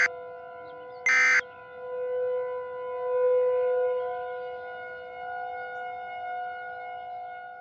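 Emergency Alert System end-of-message tones: short bursts of digital data, the last of them about a second in. They are followed by an outdoor warning siren holding a steady two-note chord that swells and then slowly fades.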